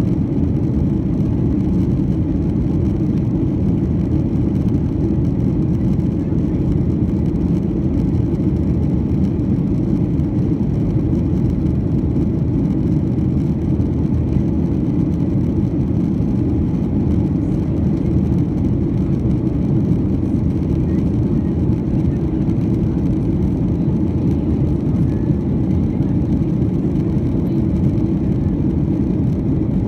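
Steady low rumble of a Boeing 737-900's CFM56-7B jet engines and the rushing airflow, heard from inside the passenger cabin as the airliner climbs out through cloud.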